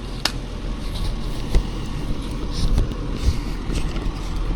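Volvo EC220 excavator's diesel engine running steadily, with a few sharp clicks or knocks.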